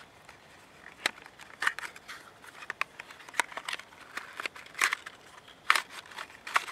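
Small cardboard box being opened by hand: the card crinkling and tearing in quick, irregular crackles and snaps that start about a second in.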